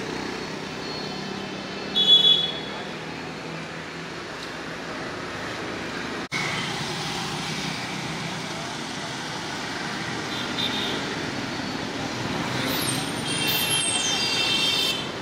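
Street traffic ambience: a steady wash of road noise from passing motorbikes and vehicles. A short, loud, high-pitched sound cuts in about two seconds in, and another high-pitched sound comes near the end.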